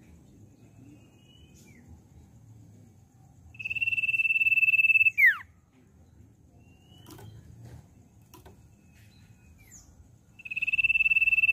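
Common iora whistling. A long, steady whistle of about a second and a half ends in a quick falling note, about three and a half seconds in, and a second one begins near the end. Softer short calls that slide downward come in between.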